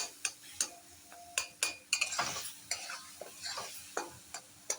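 A spatula stirring and mashing cooked mango chutney in a pan on the stove, with irregular knocks and scrapes against the pan and a light sizzle in between.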